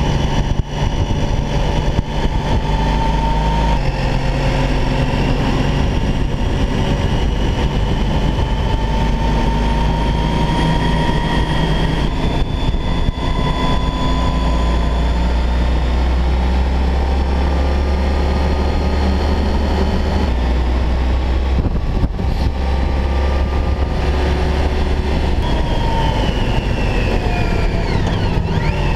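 Touring motorcycle engine running at road speed under heavy wind rush. The engine note slowly rises and falls and shifts in steps a few times through the curves.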